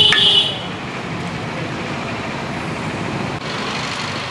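Steady street traffic noise from passing vehicles. A high steady tone, like a vehicle horn, sounds right at the start and cuts off within half a second.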